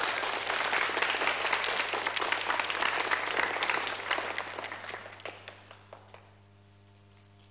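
A studio audience of children applauding. The clapping fades out between about four and six seconds in, leaving only a faint steady hum.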